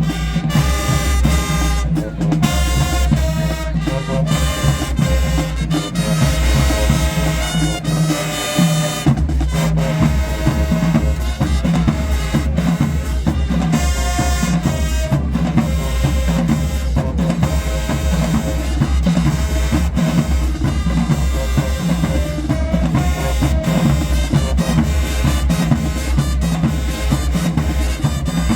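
Marching band playing loudly: sustained pitched notes over a drumline of snare and bass drums.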